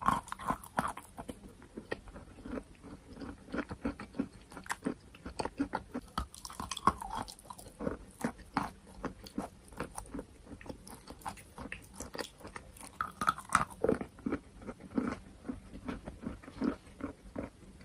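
Close-up chewing and crunching of sweet chalk: a continuous run of small crisp crunches and mouth sounds, with a louder bite about two-thirds of the way through.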